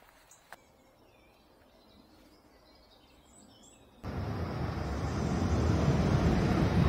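Faint birdsong chirping in quiet open air. About four seconds in it gives way suddenly to the rumble and rushing air of a tram pulling into an underground station, growing louder.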